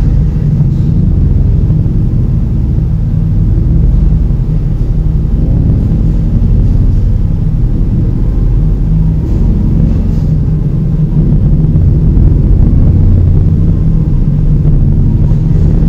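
A loud, steady deep rumble, with nearly all of it low in pitch and nothing sharp or high above it.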